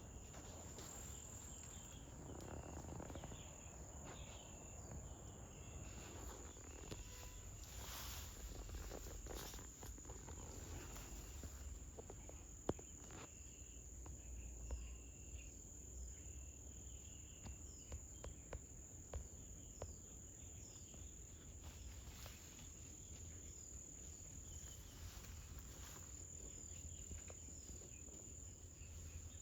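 Faint, continuous high-pitched insect trill, crickets by its sound, with a few soft clicks and one sharper click about halfway through.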